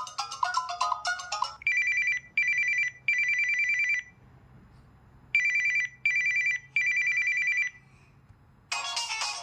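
Samsung Galaxy Mini ringtones played back. A melodic ringtone ends about one and a half seconds in. Then an old-telephone-style trilling ring sounds in two groups of three rings (two short, one longer), and another melodic ringtone starts near the end.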